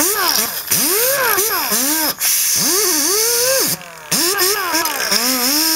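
Electric drill spinning a wire cup brush against the rusty end of a Volkswagen Beetle's heater box, cleaning it up before fitting a new muffler. The motor's pitch rises and falls over and over, over a steady hiss of bristles scraping the metal, with a short break about four seconds in.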